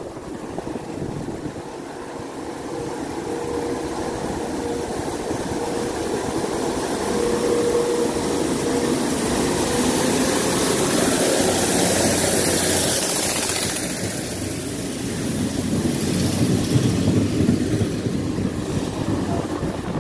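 CP UDD 0466 diesel multiple unit running past at close range: its engine and wheel noise builds as it approaches, is loudest as the railcar goes by, then eases and returns as a low rumble before it moves away.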